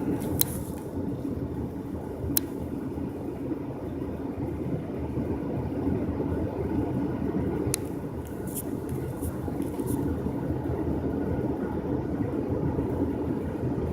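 Steady low rumble of a vehicle, with a few short sharp clicks.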